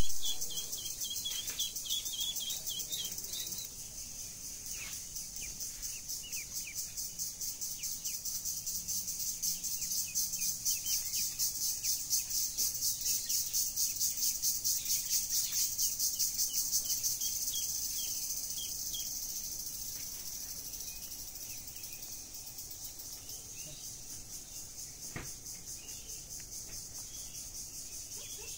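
Steady, high-pitched chirring of insects with a fast pulsing rhythm, swelling louder in the middle and fading after. Short high chirps from birds sound over it throughout.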